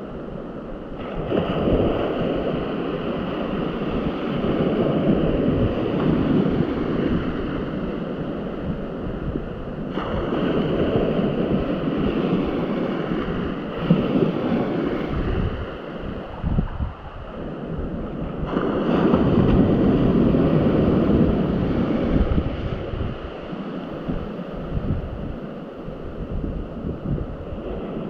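Wind buffeting the microphone over the wash of sea waves, surging louder and softer every few seconds, with a faint steady whine underneath.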